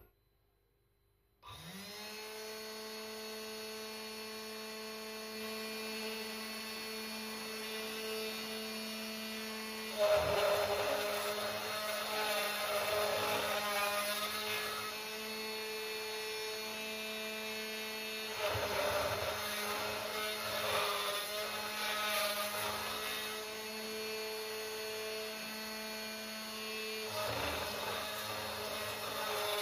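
Small CNC mill spindle motor of about 100 W starting abruptly about a second and a half in, then running with a steady hum. About ten seconds in, a 3 mm four-flute HSS end mill begins cutting aluminium, adding a rougher cutting noise over the hum that swells and eases several times.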